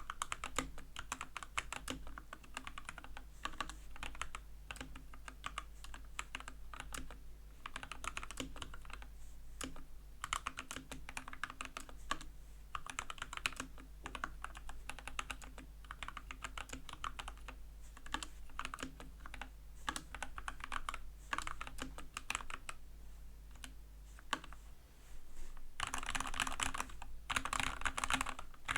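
Typing on an Epomaker AK84s mechanical keyboard with Gateron Red linear switches lubed with Krytox 205g0 and stock keycaps. The keystrokes come in quick runs separated by short pauses, turning faster and louder near the end.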